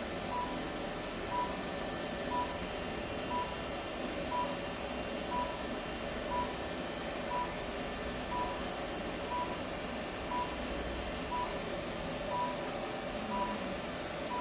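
Therapy laser unit beeping steadily, one short high beep about once a second while it runs.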